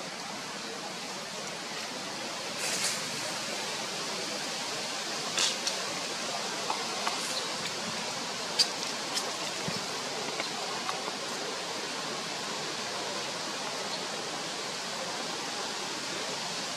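Steady outdoor hiss, with a few short clicks and light rustles scattered through it, about a dozen in all, the sharpest about eight and a half seconds in.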